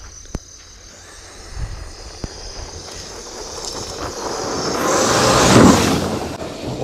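A 1/5-scale Arrma Outcast electric RC truck speeds toward and past close by on a dirt track, its motor and tyres throwing up dirt. The rush grows steadily louder to a peak about five and a half seconds in, then fades as the truck goes by.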